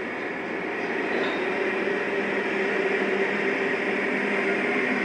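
Model train running on the layout: the steady drone of its sound-equipped diesel locomotives and rolling stock on the track, getting a little louder after about a second.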